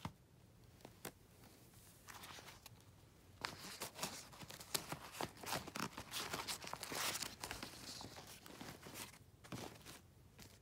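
Rustling and crinkling with scattered small clicks and knocks, busiest in the middle and dying down near the end.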